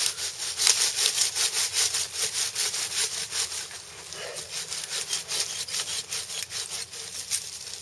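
Hand saw cutting through the trunk of a small conifer, quick back-and-forth strokes several times a second, easing off briefly around the middle before picking up again.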